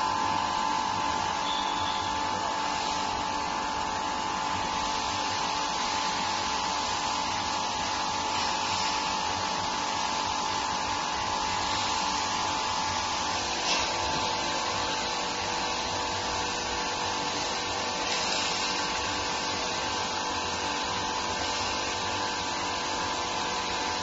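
Small induction melting furnace running under power, giving a steady high-pitched whine over an even hiss, with a small click about halfway through.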